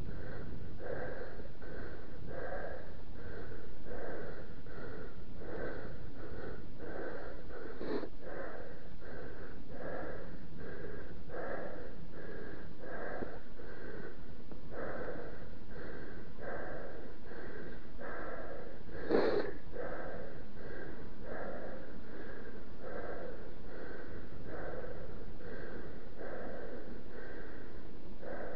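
A mountain biker breathing hard and rhythmically, out of breath, about three breaths every two seconds, picked up close to the microphone. A sharp click comes about a third of the way in, and a louder knock about two-thirds through.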